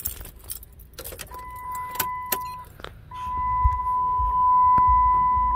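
Keys jangling and clicking as the ignition key of a Dodge Ram is turned to the run position. About a second in, a steady high electronic tone starts; it breaks off briefly near three seconds and then carries on. From about three seconds a low hum rises underneath.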